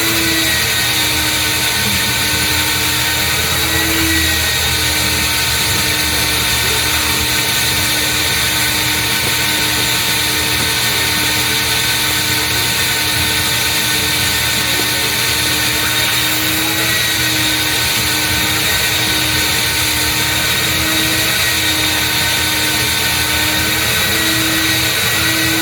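A car-wash vacuum's motor running steadily with a constant whine and a hum that swells and fades slightly as the hose sucks at the car's interior.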